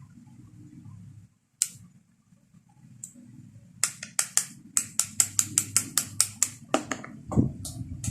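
Sharp clicks from the parts of a WE G17 Gen 5 MOS airsoft pistol being handled during disassembly: one click, then from about four seconds in a quick run of clicks, about five a second.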